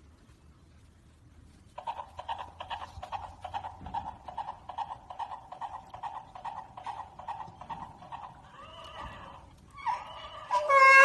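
Stuffed toy horse making its whinny sound, a fast-pulsing call that starts about two seconds in and lasts several seconds. About ten seconds in a donkey starts braying, much louder than the toy.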